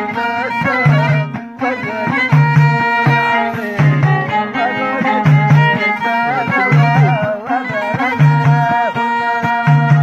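Amazigh folk ensemble playing: a violin held upright on the knee carries a wavering melody over a long-necked lute, while hand-played frame drums give a deep beat about once a second.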